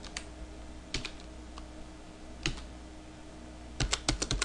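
Typing on a computer keyboard: a few scattered keystrokes, then a quick run of several keys near the end.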